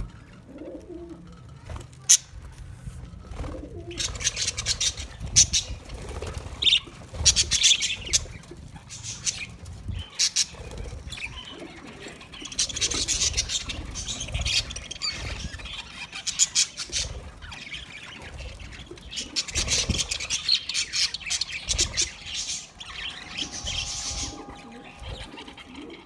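A flock of budgerigars chattering and chirping, the dense twittering swelling and fading in bursts every few seconds, with sharp clicks mixed in.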